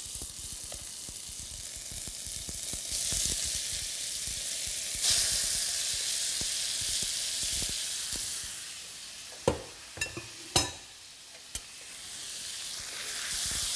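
Shredded raw chicken sizzling in hot olive oil in a wok as it goes into the pan. The sizzle swells twice in the first five seconds, dies down about two-thirds through with a few sharp clicks, then builds again near the end.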